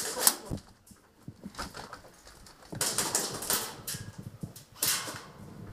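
Shuffling footsteps and rustling of clothing and gear in a few short bursts as a shooter moves through a room with a rifle, with one sharp knock near the start.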